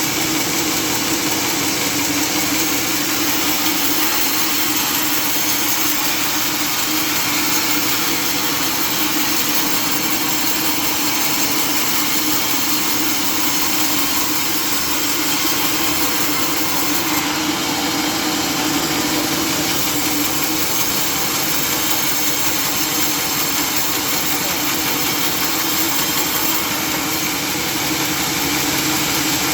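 Sawmill machinery running steadily with a continuous engine-like drone and hiss.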